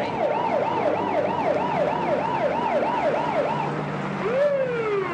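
Police car siren yelping in quick, even rising-and-falling wails, about three a second, then winding down in one long falling tone near the end. A vehicle engine hums low underneath.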